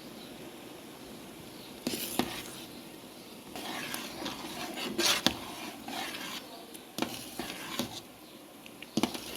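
A spoon clinking and scraping against a pot and bowls, in irregular knocks and scrapes starting about two seconds in, as the cooked canjica is served out.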